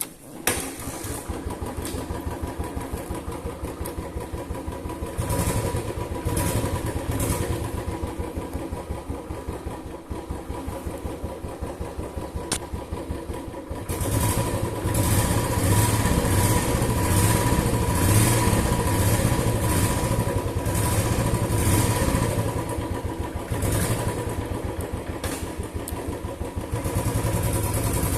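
Motorcycle engine starting suddenly about half a second in, then running with a rapid, even beat. It grows louder, with a deeper low end, about halfway through.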